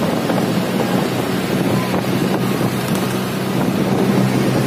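Steady engine drone of a moving vehicle, heard from inside through an open window, with wind buffeting the microphone.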